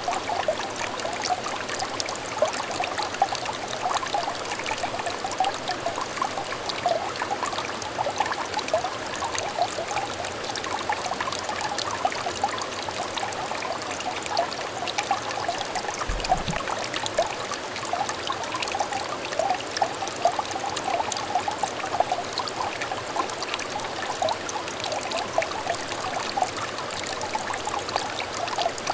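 Small stream of water trickling and burbling over stones, a steady babble of many small splashes with a brief low thump about halfway through.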